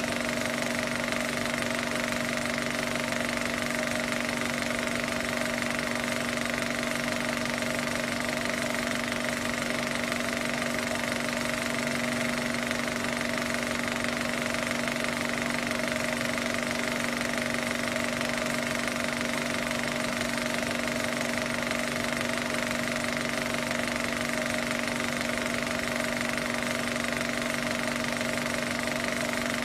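A film projector running: a steady mechanical clatter with a constant hum, unchanging throughout.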